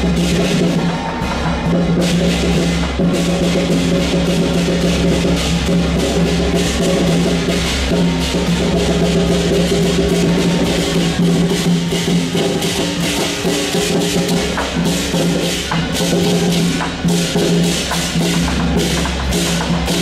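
Chinese temple-procession percussion: drums and clashing cymbals or gongs playing a fast, continuous rhythm, with a steady low hum underneath.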